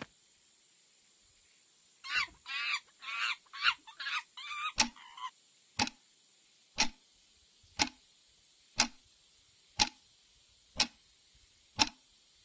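A burst of warbling, chattering animal-like calls, then a short sharp call repeated about once a second.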